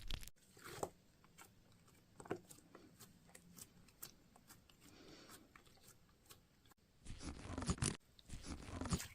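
Slime with feathers and glitter being stretched and squeezed by hand: sticky crackling and scattered popping clicks, sparse at first, then denser and louder about seven seconds in.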